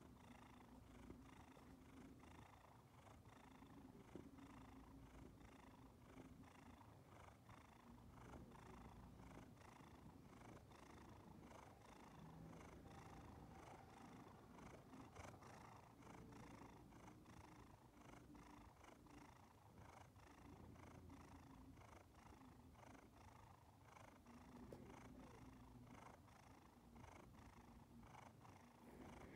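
Domestic cat purring faintly and continuously, close to the microphone, the purr swelling and fading every couple of seconds.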